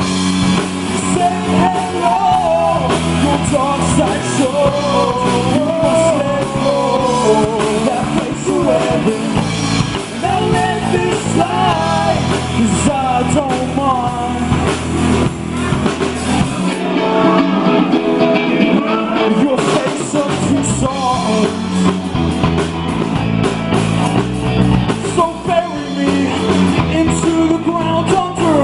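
Live rock band playing a song: a lead vocal sung over guitar and drum kit. The low end drops back for a few seconds past the middle before the full band returns.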